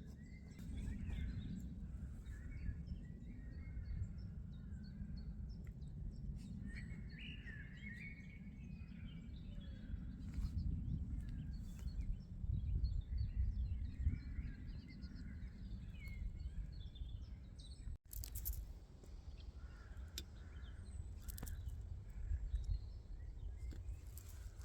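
Small birds chirping and singing here and there over a low, uneven rumble of wind on the microphone, with a momentary dropout about three quarters of the way through.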